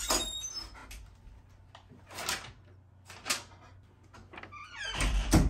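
An interior door is unlatched and opened, followed by brief rustles of a sheet of paper being handled, and a louder low thump near the end.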